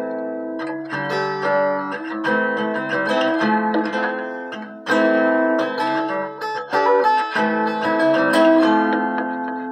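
Resonator guitar fingerpicked, a continuous run of plucked notes and chords.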